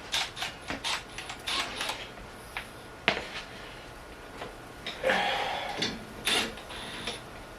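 Hand tools and metal parts being handled at a workbench: a run of short clicks and clinks, with a longer scraping rattle about five seconds in, like sockets being picked through in a tool drawer.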